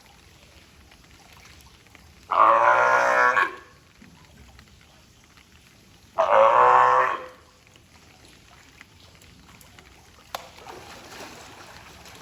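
California sea lion calling: two loud, honking barks of about a second each, about four seconds apart.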